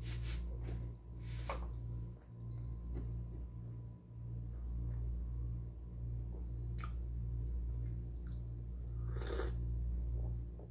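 Low steady hum of a wall-mounted window air conditioner, pulsing slightly about twice a second. A few small clicks and, about nine seconds in, a short sip from a mug.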